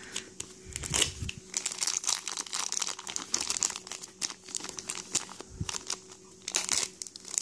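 Thin plastic pouch from an L.O.L. Surprise ball, a low-density polyethylene foil bag, crinkling irregularly as it is handled and pulled open.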